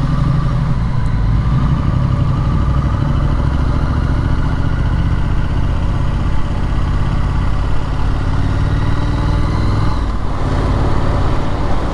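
Triumph Street Scrambler's 900 cc parallel-twin engine running as the motorcycle is ridden through town. The engine note climbs slowly, then eases off about ten seconds in.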